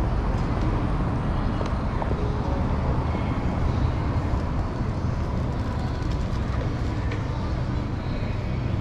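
Steady city street noise, mostly the low rumble of traffic on the road beside the sidewalk.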